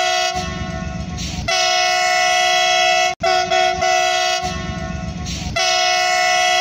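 Train horn sounding a loud, steady multi-note chord, with a low rumble under it for about a second. The same recording breaks off suddenly about three seconds in and plays again.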